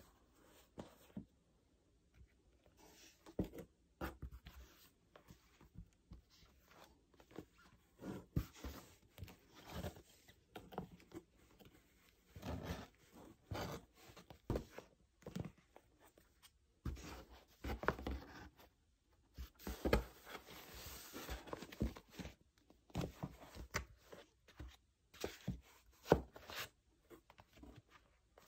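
Paperback manga volumes being lifted out of a cardboard shipping box: irregular soft knocks, scrapes and rustles as the books slide against each other and the cardboard.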